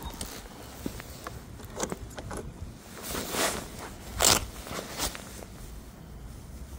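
Handling noise from a camera rubbing and rustling against jacket fabric, with a few scrapes and clicks and the loudest rustle about four seconds in, over a low wind rumble on the microphone.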